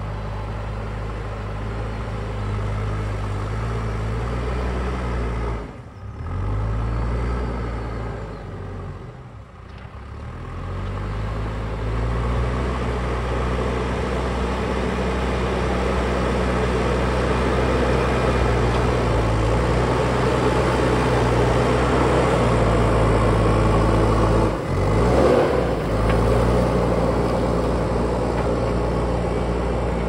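JCB backhoe loader's diesel engine working under load as it pushes dirt with the front bucket, its revs dipping briefly a few times and picking up again. It grows louder as the machine comes closer.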